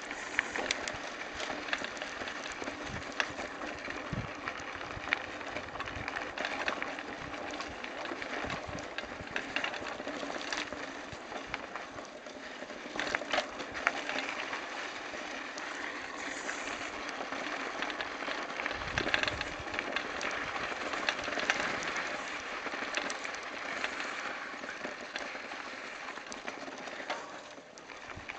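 Mountain bike rolling over a dry gravel and sand track: a steady crunching hiss from the tyres, with frequent clicks and rattles from the bike and a few dull thumps over bumps.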